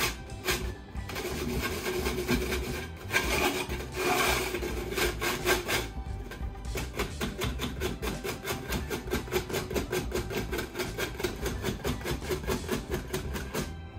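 Wire whisk rubbing and scraping against a metal fine-mesh conical strainer in rapid repeated strokes, pushing custard base through the mesh to strain out lumps. Background music plays underneath.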